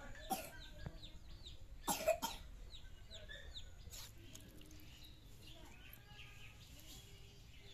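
A few sharp knocks of a steel spoon against metal cooking pots while rice and fish curry are served. Behind them, birds chirp in quick falling calls, several a second, with some clucking from chickens.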